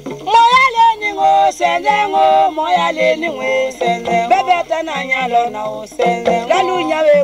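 A song: a voice singing in a local language over instrumental backing with a steady, regular low beat.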